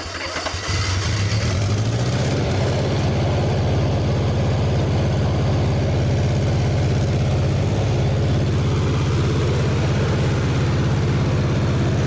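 Bobcat skid steer's four-cylinder gasoline engine running cold just after starting. It picks up over the first second, then holds a steady idle. It is running on only three cylinders because the distributor is missing a reluctor.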